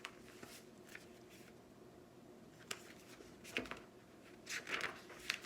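Faint paper rustling and small clicks as a picture book's page is handled and turned, with the loudest rustle near the end.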